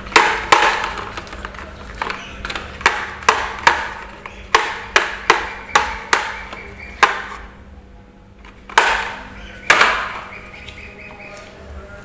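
Marbles running down a wooden marble run: irregular sharp clacks and knocks as they drop and hit the track, a few louder ones ringing briefly. There is a short lull about two-thirds of the way in.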